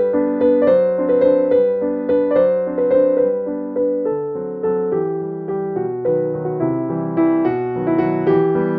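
Background music on a piano-like keyboard: a steady run of struck notes and chords at an even pulse.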